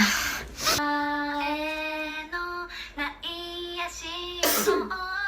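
A young woman singing held notes that step up and down in pitch. A sneeze bursts out right at the start, and another breaks in about four and a half seconds in.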